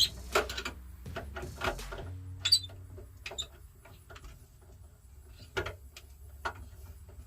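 Scattered light clicks, taps and brief squeaks of hand work with tools while wiring and mounting an electrical switch.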